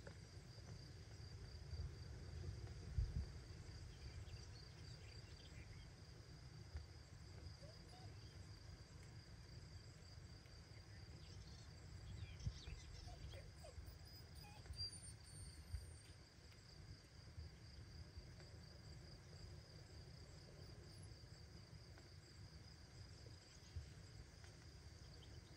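Near silence: quiet room tone with a faint, steady high-pitched trill throughout and a low rumble underneath.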